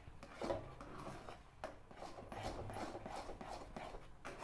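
Spoon scraping and stirring thick moong dal halwa paste around a metal pan, in short uneven strokes with light knocks against the pan, as the mixture is cooked down until fairly dry.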